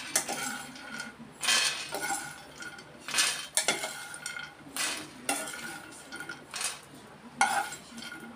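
Steel spoon scooping roasted fox nuts (phool makhana) out of a nonstick frying pan and tipping them onto a stainless steel tray: repeated metal scrapes and rattles as the dry nuts land on the steel, about one scoop every second or two.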